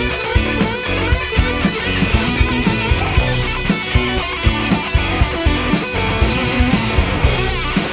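Electric guitar with JW Restoration pickups playing rock over a drum kit that keeps a steady beat.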